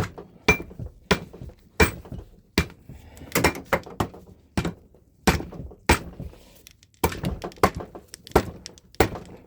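Repeated hammer blows, one or two a second and unevenly spaced, some with a short metallic ring, striking the stuck cylinder of a Suzuki DS100 two-stroke engine to break it free of the cases.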